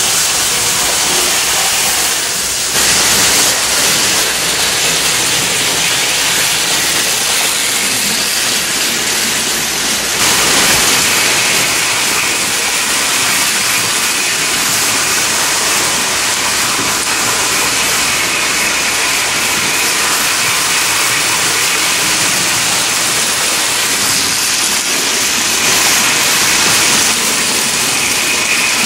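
Toy electric trains running on metal track: a steady, hiss-like noise of wheels and motors, with a faint high whine joining about ten seconds in.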